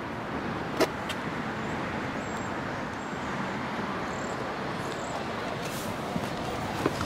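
Steady outdoor traffic noise, with one sharp click about a second in and a couple of smaller clicks near the end.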